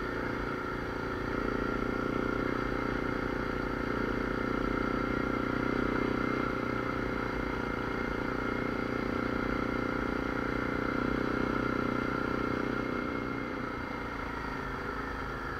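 ATV engine running steadily while riding along, picking up a little about a second and a half in and easing off slightly near the end.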